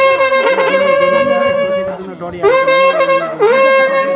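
A wind instrument of a Nepali baja band playing long held notes that scoop up into pitch, with a short break about two seconds in before it comes back.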